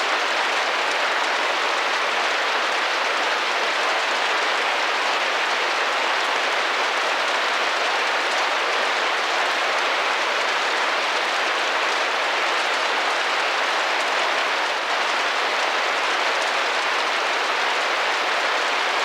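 Steady rain pattering against a window pane, an even hiss of many small drops with no pauses or single loud strikes.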